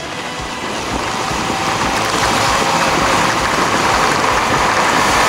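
Wind rushing over the camera microphone on a Honda CB400 Super Four riding along. The noise swells over the first two seconds, then holds steady.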